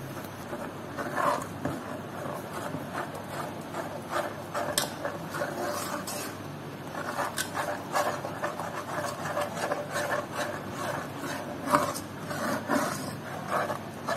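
A steel ladle scraping and stirring thick gram-flour batter round the bottom of a non-stick pan, as a continuous run of rough, uneven rubbing strokes. The batter is being cooked down and stirred without pause so it does not lump or stick.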